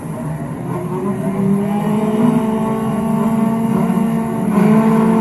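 Recorded race car engine sound effect from a children's English listening exercise: engines running with the note climbing gradually, louder near the end.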